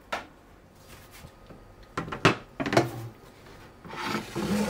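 Kitchen handling sounds: a single tap just after the start, then a quick cluster of knocks and clatter as dishes and utensils are handled on a wooden counter, and a short scrape near the end.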